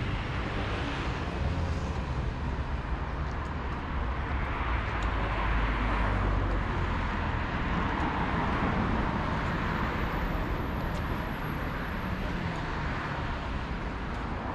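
Street traffic: a steady rumble of vehicles driving past, swelling a little in the middle as one passes closer.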